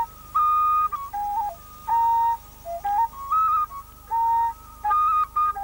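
Background music: a flute plays a slow melody of held notes, with short slides from one note to the next.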